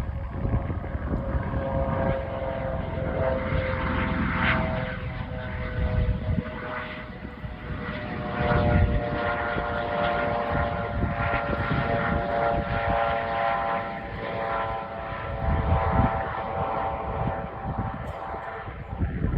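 Helicopter coming in to land: a steady whine of several stacked tones over a low rumble that swells and fades.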